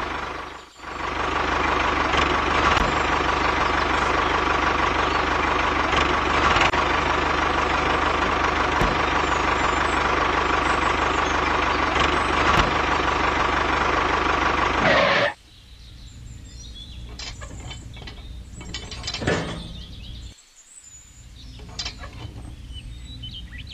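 The small motor of a miniature model tractor rig running steadily with a constant whine, then cutting off suddenly about fifteen seconds in. After that, only quiet scattered clicks and knocks from handling the model.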